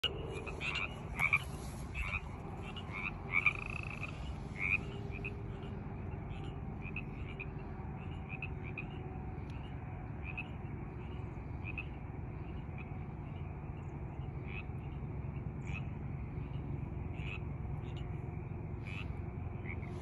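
A chorus of frogs calling: many short, high-pitched calls overlapping and repeating, loudest and most frequent in the first few seconds, then sparser and fainter.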